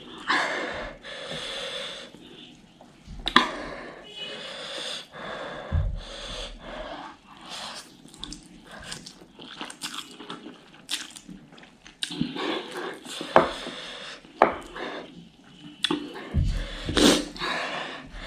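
A person eating spicy ghost pepper noodles at close range: wet chewing and mouth smacks in short irregular clusters, with breathy hisses between mouthfuls.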